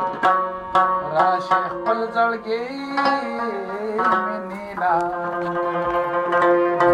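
Tabla strokes with a harmonium and a singing voice carrying a bending melody; from about five seconds in, the harmonium holds steady sustained notes.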